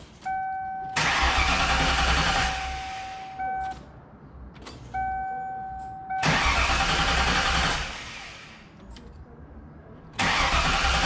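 Starter cranking the 1995 Mustang Cobra R's 5.8-litre V8 three times, about a second and a half each, without it firing. The throttle is held to the floor so the injectors stay off, which primes a fuel system left empty by a leaking fuel cell. A steady tone sounds before each of the first two cranks.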